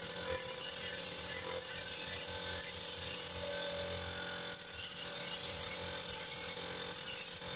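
Compressed-air paint spray gun spraying paint onto a tractor wheel rim: short bursts of hiss as the trigger is pulled and released, about six in a row with brief pauses between.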